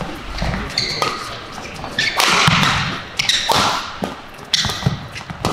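Badminton rally in a large hall: sharp racket strikes on the shuttlecock and short squeaks of players' shoes on the court mat. A louder burst of noise comes about two seconds in and lasts about a second.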